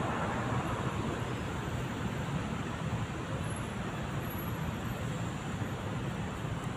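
Steady road traffic noise: a low rumble with a hiss above it.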